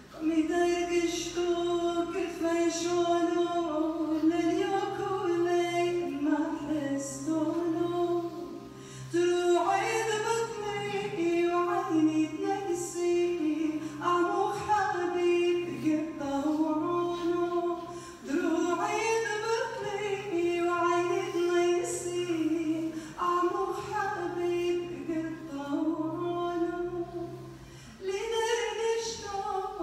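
Voices singing unaccompanied, a single melodic line carried in phrases of a few seconds each with short breaks between, over a steady low hum.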